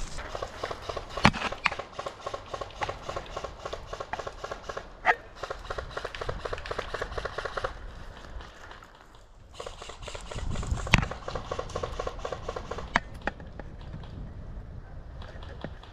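Footsteps crunching and rustling through dry leaf litter and brush: dense crackling for the first half, a short lull, then scattered sharp cracks and knocks.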